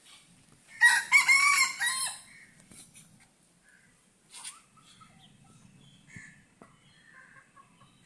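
A rooster crows once, a loud call lasting about a second and a half that starts about a second in. Faint short clucks from the hens follow.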